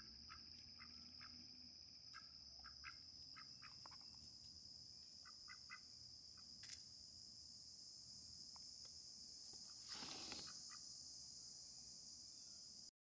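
Faint, steady high-pitched insect drone, with scattered short soft chirps and clicks and one brief louder noise about ten seconds in.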